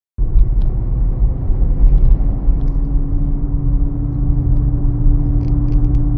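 Strong gusting wind, about 50 mph, buffeting the microphone in a heavy low rumble. A steady low hum joins about two seconds in, and a few light rattles come near the end.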